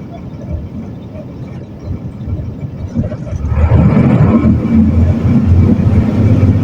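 Mercedes-Benz OM366LA inline-six turbo-diesel engine of an OF-1721 bus running, growing much louder about halfway through as it works harder under throttle.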